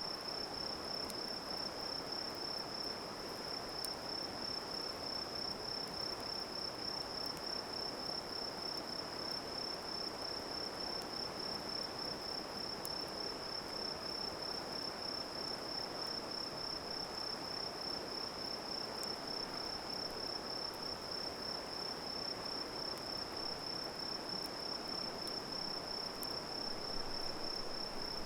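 Crickets trilling in one continuous high-pitched note, over a steady low hiss with a few faint crackles from the campfire.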